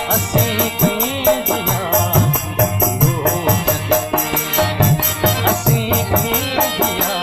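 Folk music with a steady beat: a hand drum and high rattling percussion under a melodic instrument line.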